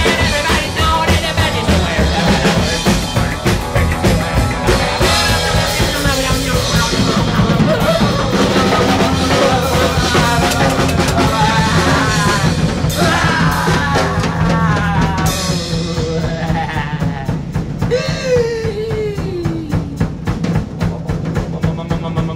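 Live rockabilly trio playing: hollow-body electric guitar over a drum kit and upright bass, with a pitch sliding down near the end.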